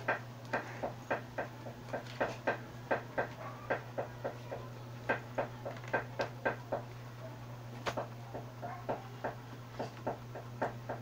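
Irregular clicking from computer controls being worked, a few clicks a second with short pauses, over a steady low electrical hum.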